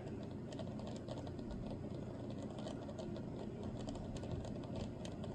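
Faint, irregular light clicks and ticks from a small die-cast toy car being handled and turned, over a low steady hum.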